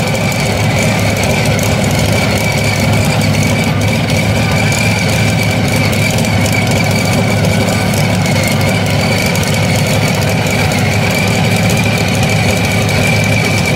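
Modified pulling tractor's engine running steadily without revving, with a steady high whine over it.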